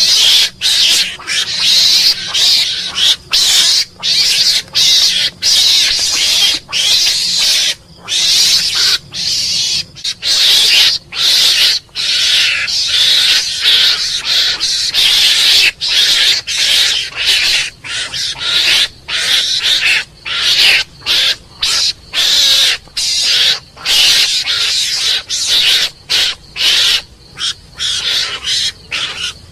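Mongoose calling: a continuous run of harsh, hiss-like chattering calls, one after another with brief gaps between them.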